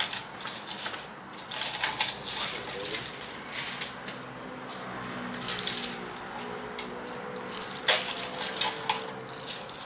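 Light handling noise: scattered small clicks, taps and rustles, a few of them sharper near the end, with a faint steady low hum through the middle.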